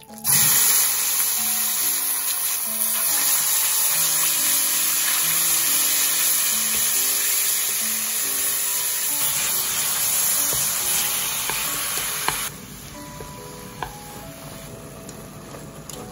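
Sliced pork neck sizzling loudly as it hits the hot oil in a frying pan, starting abruptly. About twelve seconds in, the sizzle drops sharply to a quieter, steady frying.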